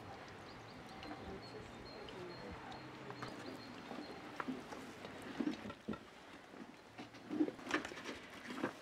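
Irregular soft taps and clicks of fried eggplant slices being handled and laid onto a round metal plate, growing more frequent and louder in the second half. A faint steady outdoor hum runs beneath them.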